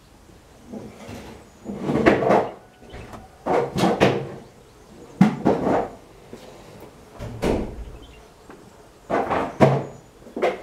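Wooden beehive equipment being handled: a series of about six short knocks and scrapes, each lasting half a second or less.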